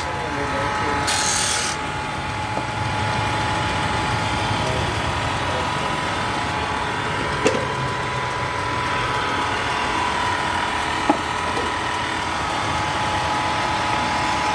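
Bench-mounted sanding disc running with a steady whine as the edges of wooden pieces are ground smooth against it. Two short sharp clicks, one about halfway through and one about three-quarters of the way through.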